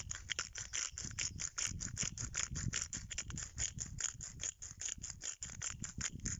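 A hand-held pepper dispenser rattling rapidly, about seven clicks a second, as black pepper is put onto a raw cut of beef, over a low background rumble.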